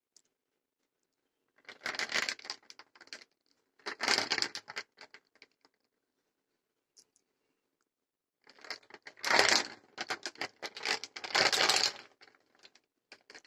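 In-shell walnuts rolling and clattering against a hard plastic perforated basket as it is tilted, in four bursts of rapid clicks with short quiet gaps between.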